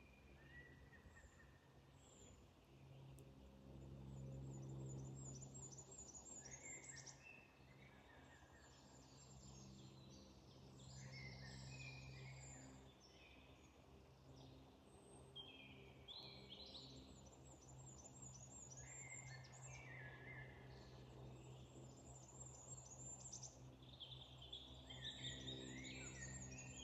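Faint songbirds singing short phrases of rapid notes, several overlapping and recurring every few seconds, over a low steady hum.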